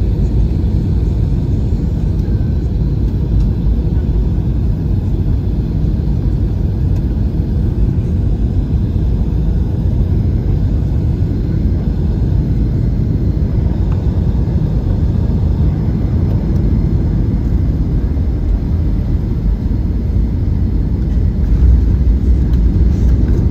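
Cabin noise of an Airbus A320 on final approach: a steady low rumble of engines and airflow, which grows louder near the end as the aircraft touches down on the runway.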